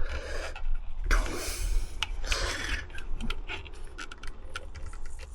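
Hands working in a cramped space among motorcycle wiring and plastic connectors: rubbing and scraping with a run of small clicks.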